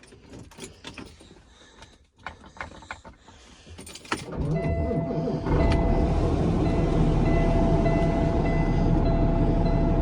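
Peterbilt truck's diesel engine starting about four seconds in and settling into a steady idle, with a steady high-pitched tone running over it. A few faint clicks and knocks come before the start.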